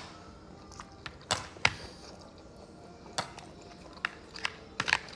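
Close-miked eating of a soup dumpling: irregular wet mouth clicks and squishes from biting and chewing, with a quick cluster of them near the end.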